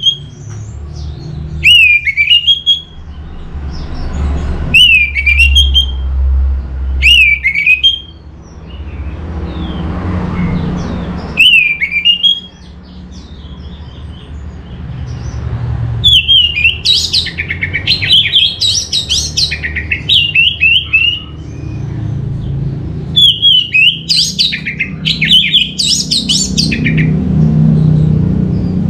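Orange-headed thrush singing: short sweeping phrases every couple of seconds, then about halfway through longer runs of rapid, varied notes, over a low background rumble.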